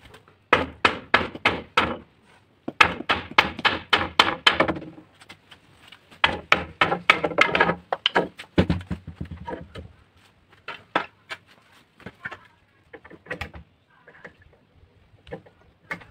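Hammer blows on wood, struck in quick runs of several knocks at about four a second, then slower, scattered single knocks in the second half.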